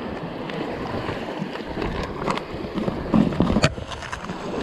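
Sea water washing and sloshing against the rocks, with wind on the microphone, swelling louder about three seconds in, with a few sharp clicks.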